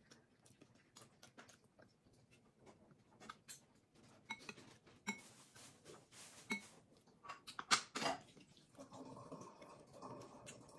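Close-up eating sounds: chewing and mouth clicks on grilled skewered meat, with light clinks of a spoon and skewer against the dishes. A denser run of clicks comes about eight seconds in.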